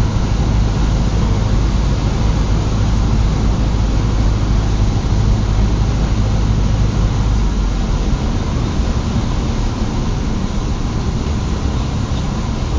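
Cessna 150's four-cylinder Continental O-200 engine and propeller making a steady loud drone. About halfway through, the deep hum weakens and the drone gets a little quieter.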